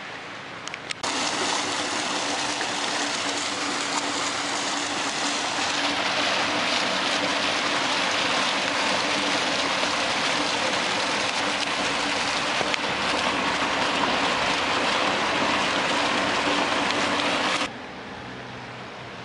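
Ornamental fountain's water jet splashing into its pool, a steady rushing splash that starts abruptly about a second in and cuts off abruptly near the end.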